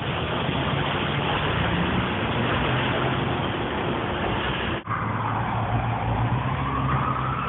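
City street traffic: passing cars and taxis running with a steady low engine hum. Just before five seconds in, the sound breaks off for a moment, then a siren wail starts rising slowly in pitch.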